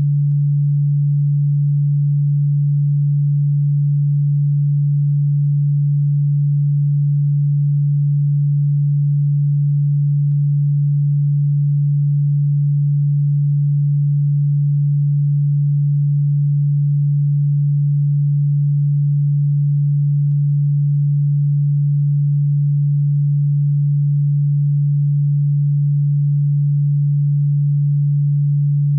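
A single low electronic pure tone, held perfectly steady and unchanging, played as a supposed cockroach and ground-bug repellent sound.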